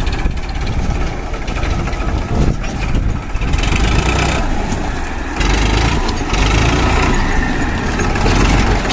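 Farmtrac Champion tractor's diesel engine running under heavy load as the tractor and its loaded trailer crawl over a large rock. The engine gets louder about five and a half seconds in.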